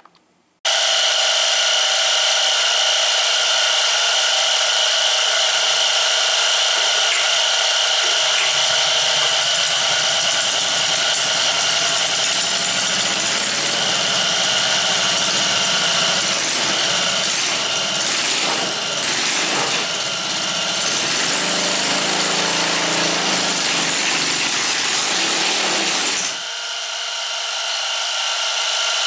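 5 hp Kawasaki small gasoline engine running steadily at speed on a homemade disc-brake dyno. About 26 seconds in its sound drops sharply, then builds back up.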